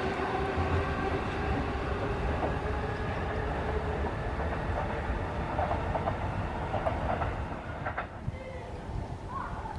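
JR Nambu Line electric commuter train running on the track, with a steady motor hum over the rumble and clatter of its wheels. The sound fades near the end as the train moves away.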